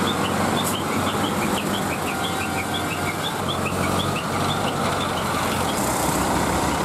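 Diesel engines of hydra pick-and-carry cranes running steadily as the machines move past at low speed. Many short, quick bird chirps sound over the first few seconds and then thin out.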